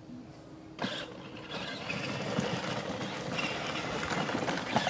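Battery-powered ride-on toy ATV driving over a leaf-covered dirt trail, its plastic wheels rolling and crunching through dry leaves along with its electric drive. A click comes about a second in, then the noise builds and holds steady until near the end.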